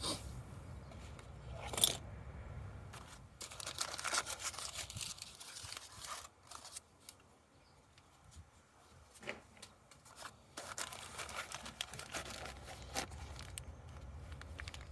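Packaging of a new ignition coil being torn open and crinkled: irregular tearing and rustling with scattered sharp clicks, the loudest about two seconds in.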